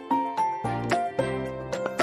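Background music: a gentle instrumental melody of short, separate notes, each struck sharply and fading, a new note every quarter to half second.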